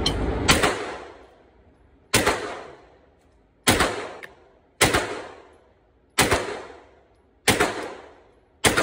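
Grand Power Stribog SP9A1 9mm fired semi-automatically: seven single shots at a slow, even pace, about one every one to one and a half seconds, each echoing in the indoor range. A steady rushing noise stops just after the first shot.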